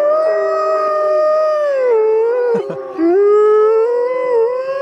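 Several wolves howling together, their long overlapping howls sliding up and down in pitch, briefly dipping about two and a half seconds in before rising louder again.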